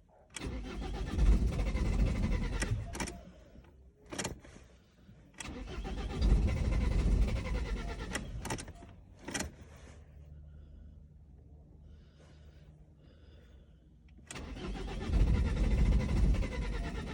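Starter cranking the Ford S-Max's 1.8 TDCi diesel engine in three attempts of a few seconds each, with sharp clicks between them. The first two attempts stop without the engine catching: a diesel that won't start.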